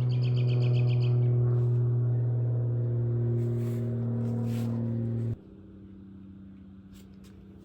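A steady low droning hum with several held tones above it; one of the upper tones shifts pitch partway through. It cuts off abruptly about five seconds in, leaving a fainter, higher hum.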